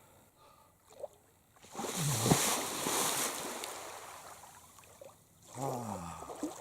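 Water splashing and washing around a canoe. It starts suddenly about two seconds in, with a low knock, and fades away over a few seconds. A short low sound falls in pitch near the end.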